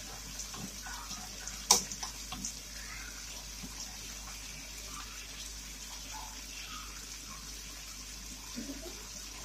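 Meat and onions sautéing in soy sauce in a frying pan, a steady sizzle, while a wooden spatula stirs and scrapes through them. There is one sharp tap of the spatula against the pan just under two seconds in.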